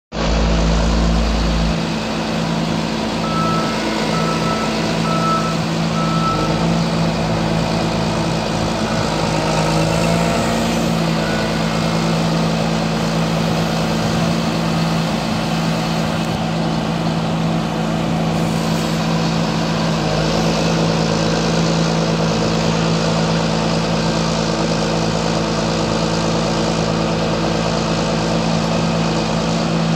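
John Deere self-propelled sprayer's diesel engine running steadily as the machine moves slowly. A few seconds in there is a run of short, evenly spaced beeps, like a reversing alarm.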